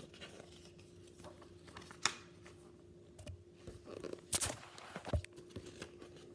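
Pages of a picture book being handled and turned: scattered paper rustles with a few sharp taps, the loudest about two seconds in and again a little past four seconds.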